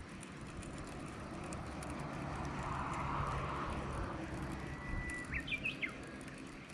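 A bird calls about five seconds in: a short held whistle, then a few quick chirps, over steady outdoor background noise.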